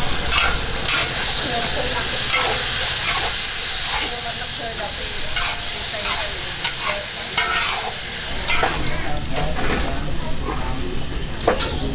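Food frying in oil in a large wok, with a steady sizzle, and a metal spatula scraping and clinking against the wok again and again as it is stirred.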